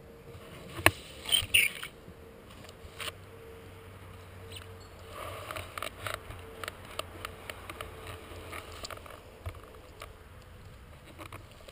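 Handling noise from a helmet-mounted camera: scattered clicks, knocks and rustling close to the microphone, with one sharp knock about a second in and a run of small clicks in the second half.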